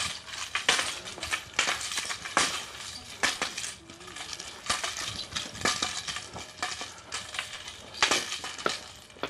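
Wooden three-sectional staff swung and twirled in a drill: a run of sharp, irregular clacks and clinks, several a second, as the sections knock together and strike a long wooden staff.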